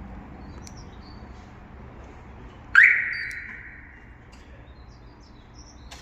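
Single electronic chirp from a Magic Car aftermarket car alarm siren, about three seconds in: a sharp tone that jumps up in pitch and fades out over about a second.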